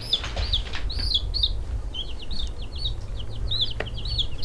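Baby chicks peeping: a steady run of short, high chirps that rise and fall, about four a second.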